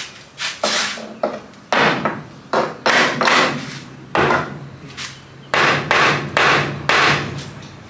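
Claw hammer striking the top of a teak window frame set in a concrete wall, in a quick, irregular series of over a dozen loud blows, some with a short scraping tail, as the frame is knocked loose.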